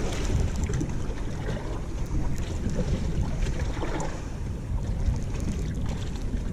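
Wind rumbling steadily on the microphone over water lapping against a boat's hull, with a few faint ticks.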